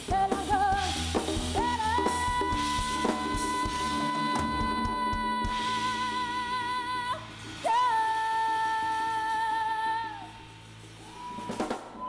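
Live rock band ending a song: the lead singer holds two long notes with vibrato over drum kit, cymbals and guitars. The band drops back about ten seconds in, leaving a single held note and guitar near the end.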